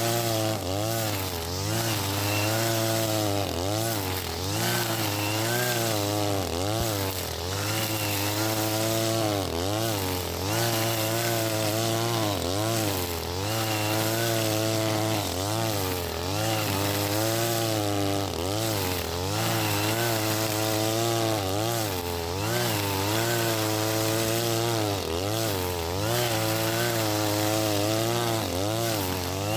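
Husqvarna 542RBS 42cc two-stroke brush cutter running at high throttle with square nylon line, cutting grass. The engine pitch dips and recovers about once a second as the line takes load on each sweep.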